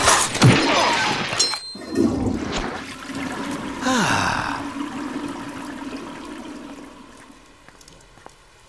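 Cartoon fight-cloud brawl sound effects: a loud, noisy scuffle with short falling cries in the first seconds, then a long held tone that slowly fades away.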